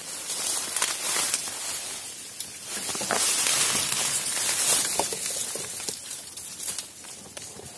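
Footsteps through dry bamboo leaf litter, with bamboo leaves and thin stems rustling and brushing against the body: irregular crackling, loudest in the middle.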